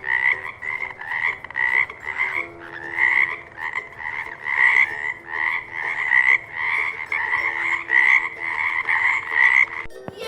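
A frog croaking over and over in a steady rhythm of about three croaks a second, stopping shortly before the end.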